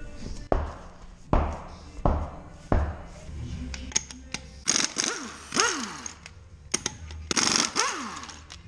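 Impact wrench hammering on a truck's wheel lug nuts in a string of short bursts, with longer rattling runs in the second half. After some bursts the wrench's motor winds down with a falling whine.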